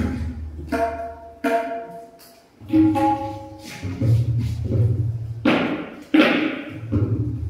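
Tabla played slowly: separate strokes, some ringing with a clear pitched tone from the small right-hand drum (dayan), others deep, lasting bass strokes from the large left-hand drum (bayan).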